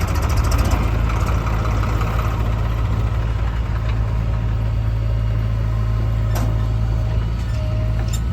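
Heavy diesel engine running steadily at low revs, with a couple of short sharp clicks or knocks near the end.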